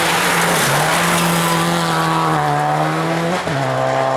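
Rally car engine pulling hard on a gravel stage, its pitch climbing slowly and then dropping sharply about three and a half seconds in as it shifts up, over a steady hiss of gravel under the tyres.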